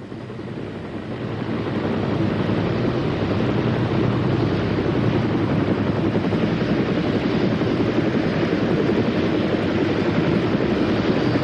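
Piasecki H-16 tandem-rotor helicopter in flight: a steady, dense rotor and engine noise that grows louder over the first couple of seconds and then holds level.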